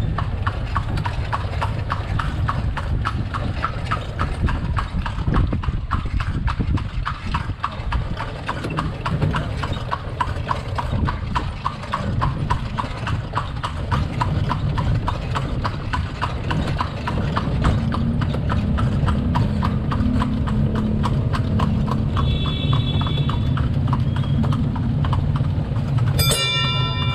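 Horse's hooves clip-clopping on a paved street as it pulls a horse-drawn carriage (kalesa), in an even rhythm of about four strikes a second.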